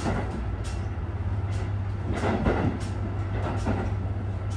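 Yufuin no Mori diesel train running, heard from inside at the gangway between cars: a steady low rumble with a few faint knocks.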